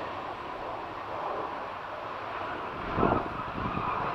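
Distant twin turbofan engines of an Embraer Lineage 1000 business jet, a steady jet rumble as it rolls out on the runway after landing. Wind buffets the microphone about three seconds in.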